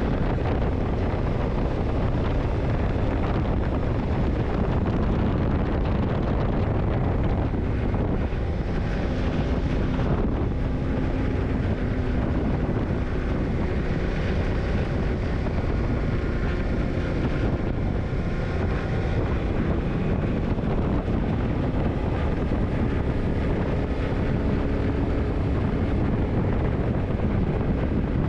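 Yamaha TDM900 parallel-twin engine running steadily while riding, mixed with wind buffeting the microphone.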